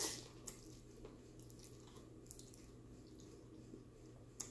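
Faint chewing of a mouthful of noodles: a few soft, wet mouth clicks and smacks, the sharpest just before the end.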